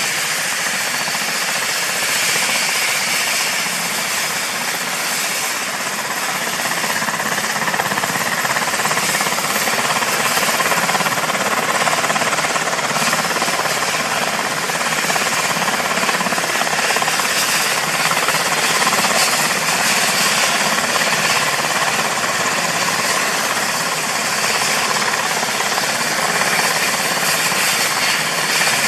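UH-60JA Black Hawk's twin turboshaft engines running through start-up, a steady turbine whine over a loud hiss, as the main rotor turns up to speed; it grows a little louder partway through.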